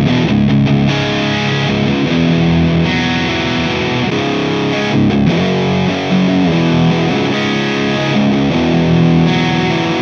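Distorted electric guitar riff of chugged power chords from a Fender Stratocaster HSS on its humbucker, played through small EL84-powered tube amp heads. Partway through, the amp changes from a Mesa/Boogie Rectoverb 25 to an Orange OR15. It is recorded direct through a Torpedo Captor X load box with a 4x12 cabinet impulse response rather than a room microphone.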